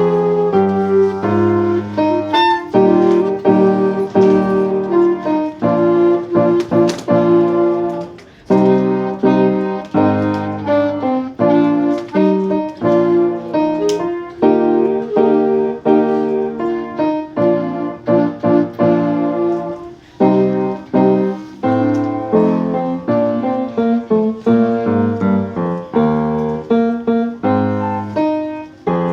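Piano-like keyboard playing a steady melody over chords, note after note with clear separate attacks.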